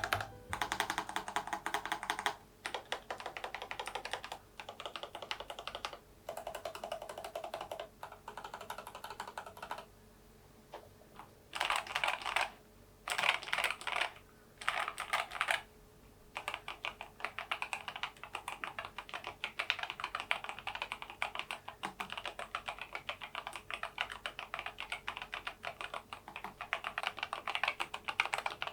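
Typing on a NuPhy Air96 V2 low-profile keyboard with Gateron low-profile 2.0 red linear switches and its stock low-profile keycaps: a steady run of light keystrokes. It pauses about ten seconds in, then comes a few short quick bursts before steady typing resumes.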